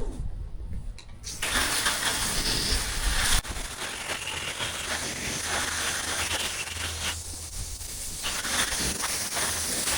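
Pressure washer rinsing soap off a chopper-box wagon: the engine runs steadily, and about a second in the spray starts, a loud continuous hiss of water striking the wagon.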